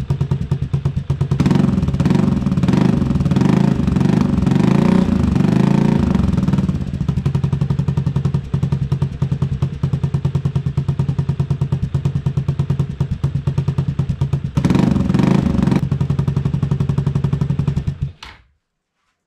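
Honda Fusion scooter's single-cylinder four-stroke engine running on its first start after ten years in storage, pulsing steadily at idle. The throttle is blipped twice, raising the revs for several seconds and then briefly. The sound stops abruptly near the end.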